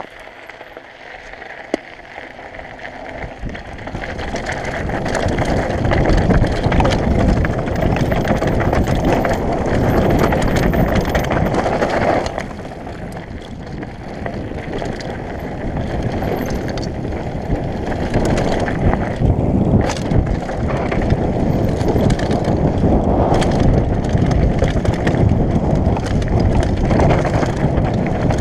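Downhill mountain bike riding over a gravel and dirt trail: wind buffeting the microphone mixed with tyre and frame noise, building up over the first few seconds as the bike gathers speed. Occasional sharp knocks as it hits bumps.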